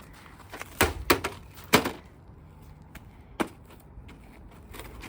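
Hammer blows striking the hard plastic shell of a Trifo robot vacuum: several sharp knocks at uneven intervals, the strongest about a second and two seconds in, another about three and a half seconds in. The shell holds up under the blows.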